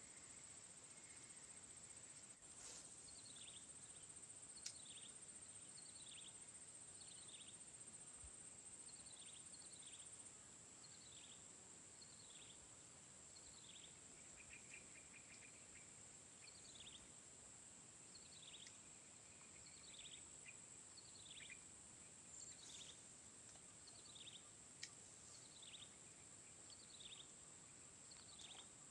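Faint ambience: a steady, high-pitched insect drone, with a bird repeating short falling call notes about once a second.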